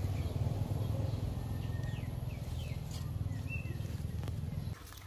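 Low, steady rumble with a few short, faint bird chirps over it; the rumble cuts off suddenly near the end.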